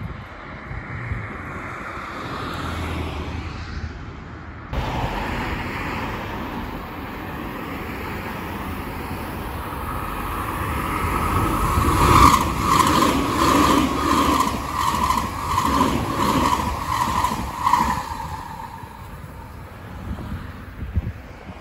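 A passenger train approaching and passing close by, its running noise building up and then a regular clatter of wheels over rail joints, about one and a half beats a second, for several seconds before it fades away.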